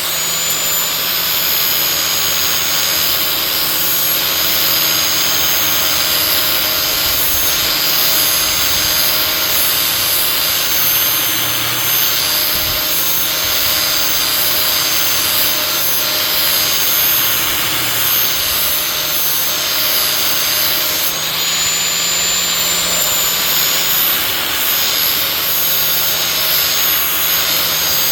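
Angle grinder with a 40-grit zirconia flap disc grinding the cutting edge of a steel mower blade: a steady high whine over a continuous grinding hiss, its pitch lifting briefly about two-thirds of the way through.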